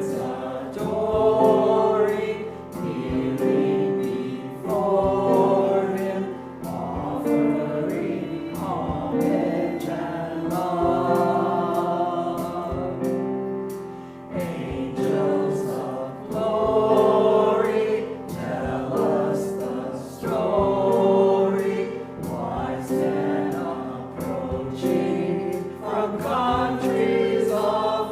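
A choir singing, several voice parts holding notes together and changing pitch every second or two.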